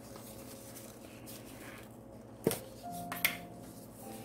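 Kitchen handling noises while measuring out breadcrumbs: a sharp click about halfway in and a smaller click just after, over a faint steady background with a brief faint tone near the end.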